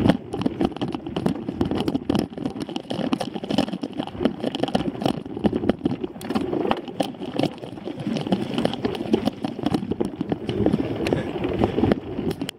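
Mountain bike riding over rough dirt trail, heard through a camera mounted on the rider or bike: a constant, irregular rattling and knocking from the bike and its tyres on the bumpy ground, with a fluctuating rumble.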